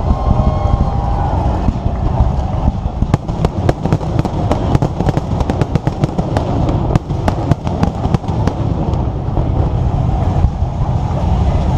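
Fireworks going off: a quick run of sharp cracking reports, several a second, from about three seconds in until about nine seconds in, over a continuous low rumble.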